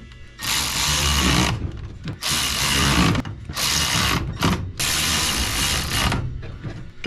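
Power drill/driver running in several short bursts of about a second each, backing out the natural-gas parts of a furnace's gas train during an LP conversion.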